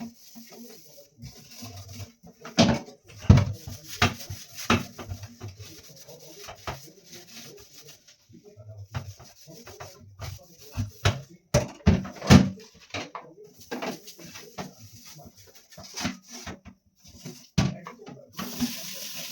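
Irregular knocks and clatters of objects being handled and set down. A steady rush like running tap water starts near the end.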